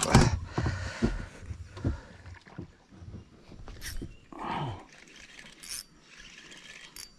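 Knocks, clicks and rustles of hands handling fishing tackle and a spinning rod and reel in a small boat, loudest in a sharp clatter at the start. About four and a half seconds in there is a short sound that falls in pitch.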